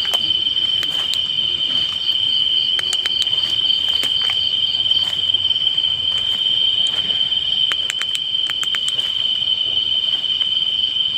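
Night insects trilling in a steady, unbroken high-pitched chorus, with a few faint clicks about three seconds in and again after seven or eight seconds.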